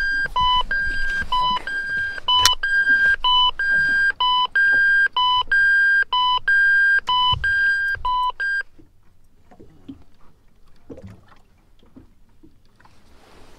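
Electronic alarm beeping, a higher and a lower tone alternating about once a second, that cuts off about eight and a half seconds in; faint low rustles and knocks follow.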